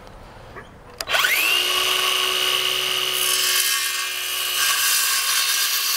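Power circular saw starting up about a second in, its motor spinning up fast to a steady high whine as it cuts across a 1x pallet board.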